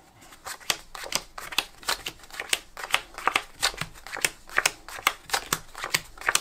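Bicycle playing cards being dealt quickly off a held deck into several piles: a run of crisp card snaps about three a second. The deal is a bottom deal, with cards slid out from under the deck among the top cards.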